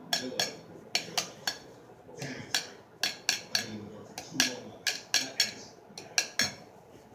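Small metal pieces, an Allen key and screws, clinking and tapping against each other: sharp metallic ticks with a brief bright ring, at an uneven pace of about two a second.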